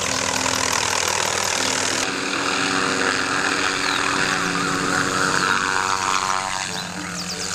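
A small helicopter flying low, its engine and rotor running steadily.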